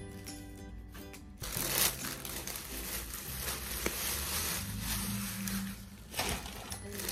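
Background music with the crinkle and rustle of a clear plastic garment bag being opened and handled. The crinkling starts about a second and a half in and is the loudest thing from then on.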